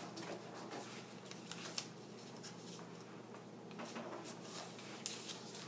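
A sheet of paper being folded and creased by hand: faint rustling with a few sharper crinkles, the loudest about five seconds in.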